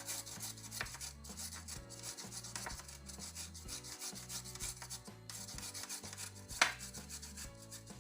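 Fresh ginger root being rubbed against a hand grater: quick repeated rasping strokes with a couple of short pauses, and one sharp knock about six and a half seconds in.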